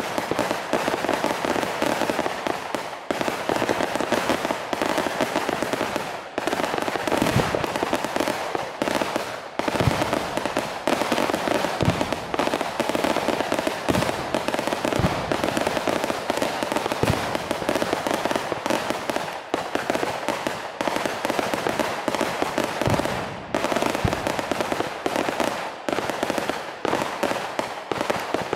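Long string of firecrackers hanging beneath a traditional Ponorogo paper hot-air balloon going off in a rapid, unbroken crackle, with a heavier bang standing out every few seconds.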